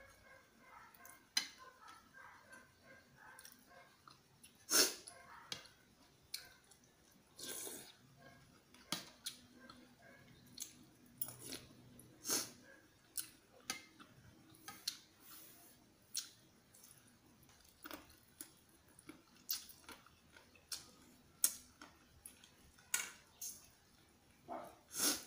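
Close-up chewing and mouth smacks of a man eating macaroni soup, with irregular sharp clicks and smacks every second or so.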